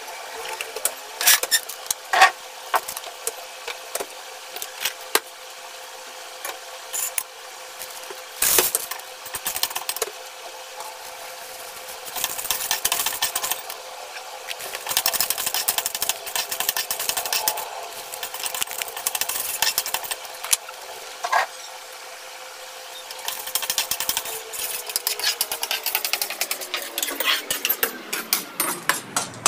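Metal slotted spoon scraping and stirring unpopped popcorn kernels around an aluminium kadai, with scattered clicks and rattles of kernels on the metal, coming in denser runs of stirring through the middle and latter part. A steady hum runs underneath.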